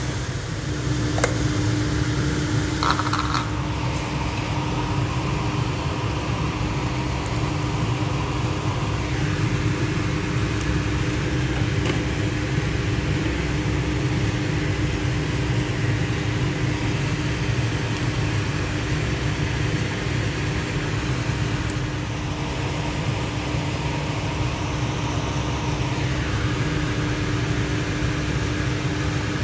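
Steady mechanical fan hum with a low drone and one constant pitched tone, with a couple of light clicks in the first few seconds.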